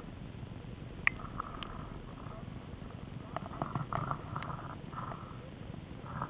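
Camera handling noise: rustling and a few sharp clicks and knocks against the microphone, over a low steady rumble, with one knock about a second in and a cluster of rustles around the middle.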